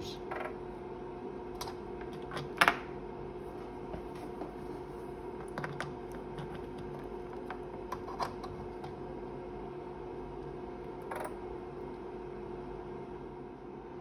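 A few sharp clicks and taps from handling a radio test set's front-panel controls and cable connectors while changing over to another coaxial cable, the loudest about two and a half seconds in, over a steady electrical hum.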